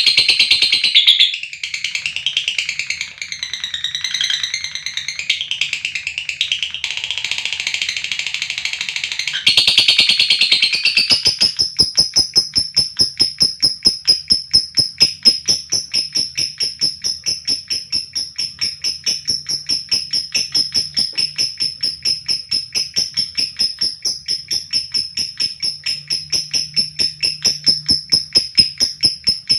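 Lovebird chattering in high, wavering calls. About ten seconds in it breaks into a long, rapid trill of evenly spaced high notes held at one pitch: the long 'ngekek' song (ngekek panjang).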